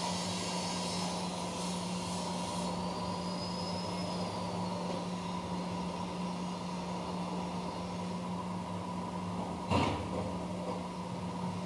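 CNC machine running with a steady hum and a faint high whine that rises and falls partway through, as from its stepper motors moving an axis; a single sharp knock near the end.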